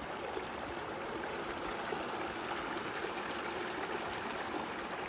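Steady rush of a flowing stream, even and unbroken.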